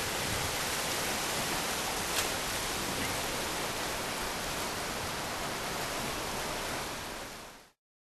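River rapids rushing in a steady, even hiss of whitewater, with one brief click about two seconds in. The sound fades quickly and cuts to silence near the end.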